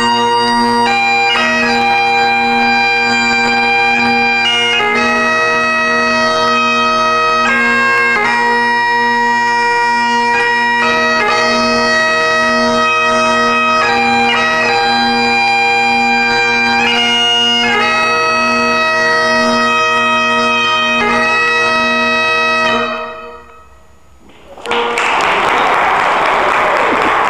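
Great Highland bagpipes playing a tune: the chanter moves from note to note over steady low drones. The pipes stop about 23 seconds in, and after a short pause an audience breaks into applause.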